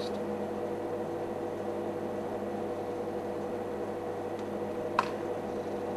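A single sharp crack about five seconds in, like a gunshot, over a steady low hum.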